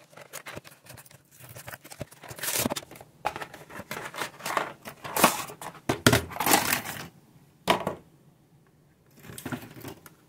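Cardboard toy packaging and its paper insert being torn open and crumpled by hand, in irregular rough bursts that are loudest past the middle. A few shorter rustles follow near the end.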